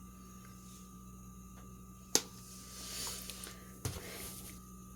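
Quiet handling sounds of filling empanada dough with chicken by hand: a sharp click about two seconds in, a soft rustle, and a dull knock near the end, over a steady electrical hum.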